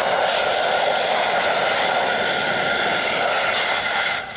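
A thin stream of water poured into a stainless-steel saucepan on a campfire, splashing steadily onto freshly roasted tea leaves. It stops just before the end.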